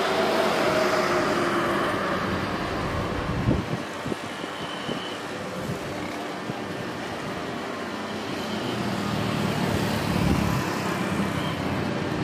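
Distant roar of a Saudia Boeing 777-300ER's GE90 jet engines at takeoff power during its takeoff roll, a steady rushing noise that swells somewhat near the end. A few low bumps of wind hit the microphone.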